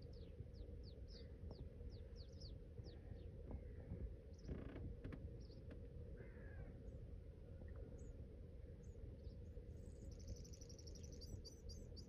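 Faint bird calls: a run of quick, high, falling chirps at the start, a few scattered calls in the middle, and a rapid high trill near the end, over a steady low hum and background noise.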